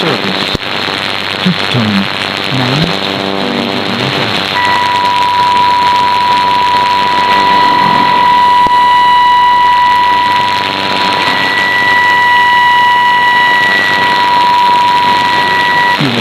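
Shortwave AM broadcast received on a software-defined radio: a steady hiss of static under the signal. Music fades out in the first few seconds, then a steady test tone with faint overtones starts about four seconds in and holds until just before the end.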